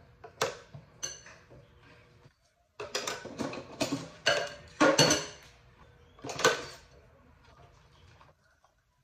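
Dishes clinking and clattering in a stainless steel sink during hand washing: two sharp clinks in the first second, a run of clattering from about three to five seconds in, and one more clatter a little later.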